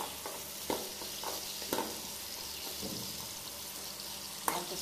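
Potato pieces frying in hot oil in a pan, a steady sizzle, with a few short knocks of a steel spoon stirring them.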